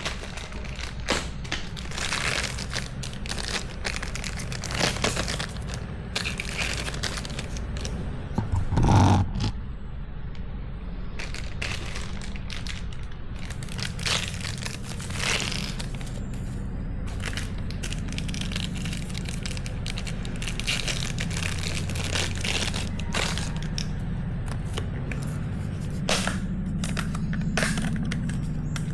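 Irregular clicks, cracks and scrapes of things being handled, with a louder rustling crunch about nine seconds in, over a steady low hum.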